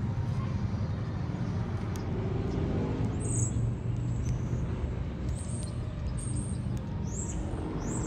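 Steady low engine rumble with a few short, high bird chirps.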